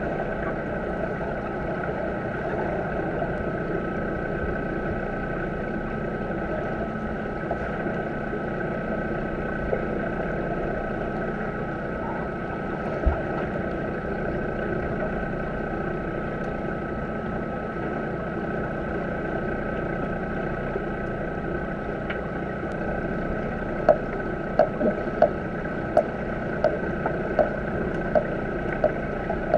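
Steady underwater hum and hiss of a swimming pool, heard through a submerged camera, with a few constant tones. A single sharp click about halfway, then about ten sharp clicks in the last six seconds.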